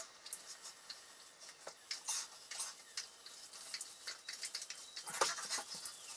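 Hands rubbing and squeezing a wet borzoi's soaked coat during a bath, giving faint, irregular wet clicks and squelches, with a slightly louder patch about five seconds in.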